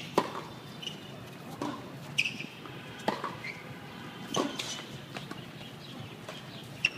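Tennis rally: a ball struck back and forth by rackets, a sharp pop about every one and a half seconds, five in all, with short squeaks of tennis shoes on the hard court between hits.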